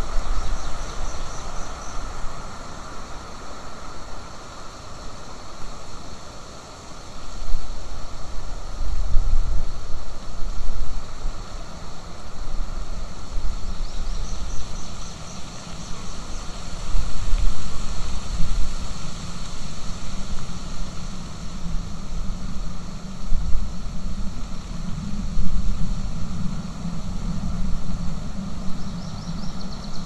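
Gusty wind buffeting an outdoor nest-camera microphone, an uneven low rumble that swells and falls. Three times, about a second in, around the middle and at the end, a bird gives a short run of quick high notes.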